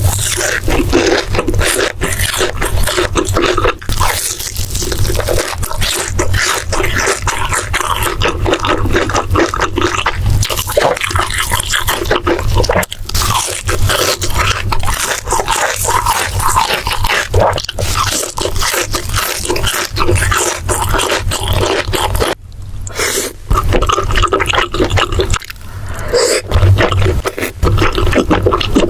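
Close-miked mukbang eating sounds: rapid, wet chewing and smacking, loud and continuous, with a brief pause about 22 seconds in.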